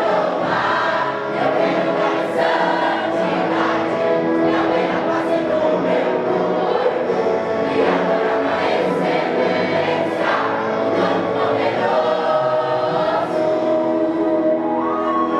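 Gospel vocal group singing a Brazilian gospel medley in harmony with musical accompaniment, at a steady level throughout.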